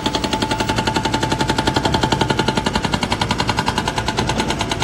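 Excavator-mounted hydraulic breaker hammering through road pavement: rapid, evenly spaced blows in a steady, loud rattle.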